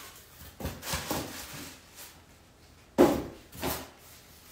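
Styrofoam delivery boxes being handled and set down on a counter: a few knocks and scuffs, the loudest a sharp knock about three seconds in.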